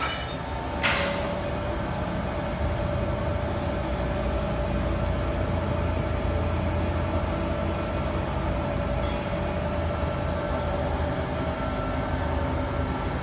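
FEMCO BMC-110 R2 CNC horizontal boring mill running under power: a steady machine whine over a low rumble, with a short hiss about a second in.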